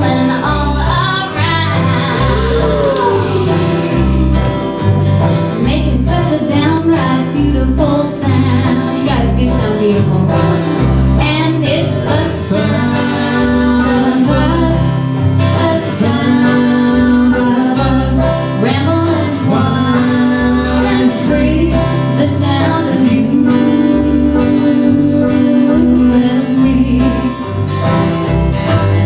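Live acoustic band playing: plucked guitar and banjo over a steady line of bass notes, with a woman singing in long held and gliding notes.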